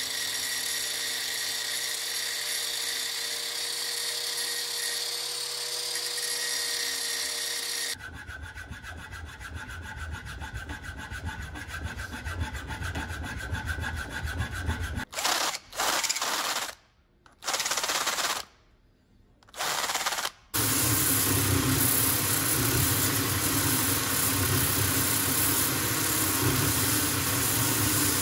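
Angle grinder with an abrasive disc grinding a steel part clamped in a vise, a steady whine for about eight seconds. Then hand filing of the part, a run of quick rasping strokes, broken by several abrupt cuts. In the second half a power drill mounted in a stand spins a sanding disc, a steady motor hum with the rasp of the part pressed against it.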